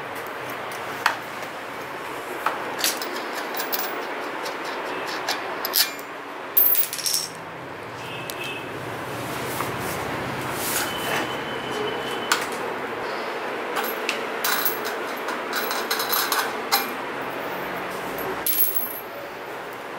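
Scattered small metal clicks and clinks of bicycle parts being handled during assembly, the front wheel, axle nuts and washers being fitted to the fork, over a steady background hiss.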